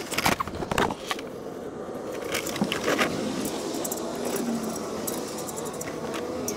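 Metal parts clinking and scraping as the catalytic converter's flange is worked onto the exhaust pipe flange under a Ford E-450 chassis. The sounds come in short clusters in the first second and again about three seconds in, over steady background noise.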